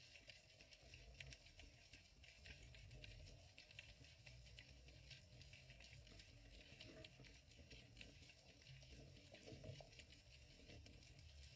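Faint underwater ambience through a GoPro's waterproof housing: a low, steady water rumble with many small irregular clicks and crackles.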